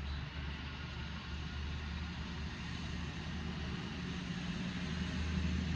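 Low, steady rumble of a motor vehicle's engine, slowly getting louder.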